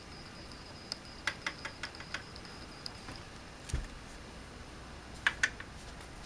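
Small sharp metal clicks and taps from working a pin out of a Norinco JW-14 .22 rifle with a punch. A quick cluster of clicks comes about a second in, a duller knock follows near the middle, and two more clicks come near the end.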